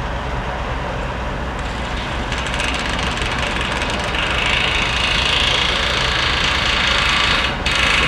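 A heavy construction-machinery engine idling steadily. Over it, a power tool torquing down coaster track bolts whirs briefly near two seconds in, then runs from about four seconds in and cuts off suddenly just before the end.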